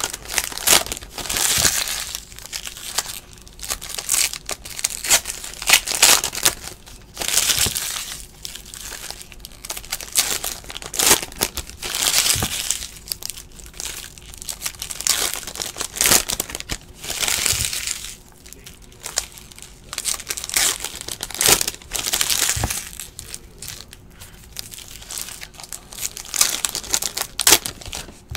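Foil trading-card pack wrappers being torn open and crinkled by hand, in irregular bursts of crackling.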